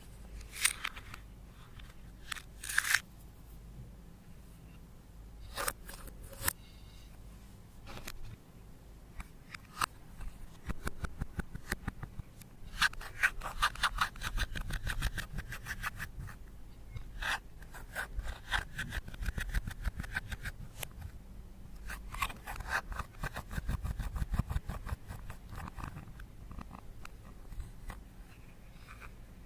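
Slime being worked by hand, with runs of rapid small clicks and crackles from air pockets popping as it is squeezed and stretched, plus a few sharper single pops in the first seconds.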